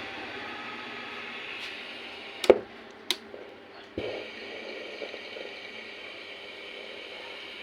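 A steady hiss, broken by three sharp clicks or knocks about two and a half, three and four seconds in.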